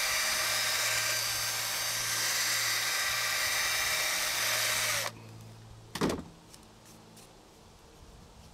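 A portable drill spins a coarse-grit 1-inch sanding drum against the inside of a wooden handle's hole, a steady abrasive hiss over the motor's hum. It cuts off suddenly about five seconds in, and a short burst of noise follows about a second later.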